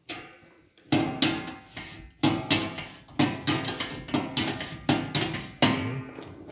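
Large steel circular saw blade on a sharpening machine, clanking and ringing briefly at the same pitch with each strike, about a dozen uneven strikes.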